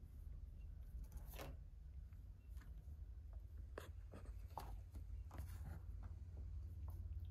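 Faint, irregular scratching and rustling from Persian kittens pawing and clawing as they play on a shaggy rug and scratch pads, over a steady low hum.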